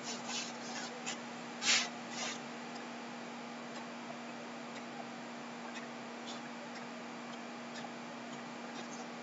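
Quiet room tone with a steady low electrical hum, a few faint clicks near the start and a short hiss just under two seconds in.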